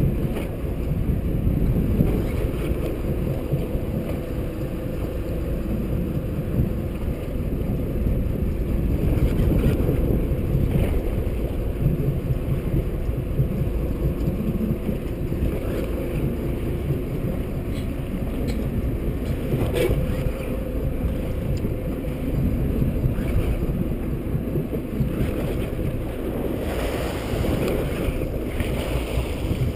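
Wind buffeting the microphone over a small fishing boat's motor running steadily, with water rushing along the hull. The rush of water grows louder near the end as spray comes up beside the boat.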